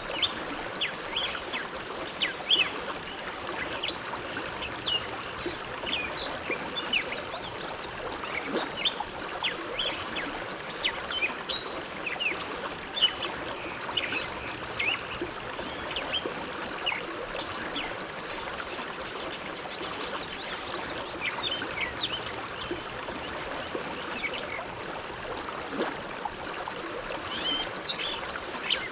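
Bow River water flowing: a steady rush with many small splashes and gurgles scattered through it.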